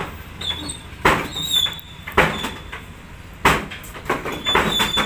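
A run of sharp knocks about once a second, with faint short high chirps in between.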